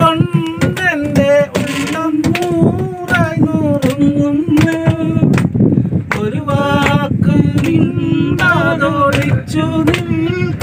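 A man singing a Malayalam song unaccompanied, a wavering held melody, with sharp taps or clicks alongside.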